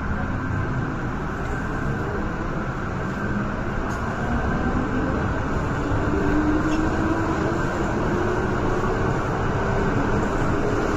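MTR M-train electric multiple unit running, with a steady rumble of wheels on track and a traction-motor whine that rises in pitch as the train picks up speed.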